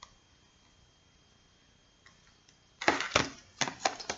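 Slime with beads mixed in being squeezed and poked, giving a quick run of sharp, irregular clicks and pops that starts near the end after a near-silent pause.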